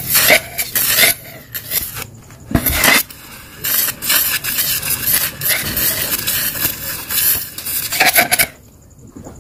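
Irregular scraping and rubbing in short rasping strokes with a metallic edge, stopping about a second before the end.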